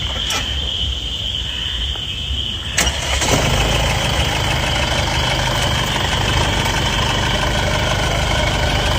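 A car engine starting a few seconds in, just after a click, then running steadily at idle. A steady high-pitched tone sounds throughout.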